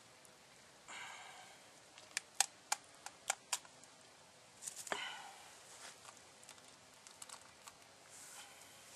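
Six sharp, light taps in about a second and a half, then a brief scuffle and a few fainter clicks: hard objects being handled on a wooden stump.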